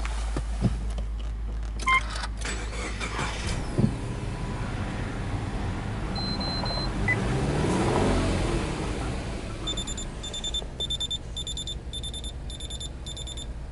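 Subaru EJ20 2.0-litre turbocharged flat-four idling at about 1,000 rpm, with a few sharp clicks in the first few seconds. Near the end comes a run of about seven short high beeps, roughly two a second.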